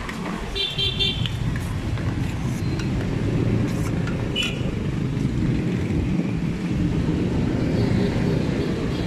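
Steady rumble of road traffic passing close by. A short high-pitched squeal sounds about a second in, and another, briefer one at about four and a half seconds.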